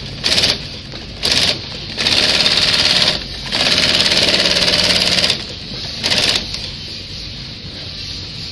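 TOPEAGLE TR-168/2 shoe sole sewing machine stitching a sole onto a skate boot in stop-start runs of rapid needle strokes. Two short bursts, then two longer runs of one to two seconds, then another short burst, with a steady hum between runs.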